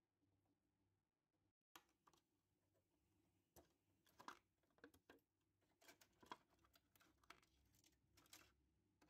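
Faint, irregular clicks and taps of fingers handling the flat ribbon cable and plastic parts of an Epson L3210 printer's scanner unit.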